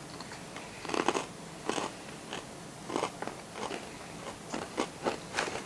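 Someone chewing crunchy freeze-dried fruit: a run of irregular crisp crunches, loudest about a second in.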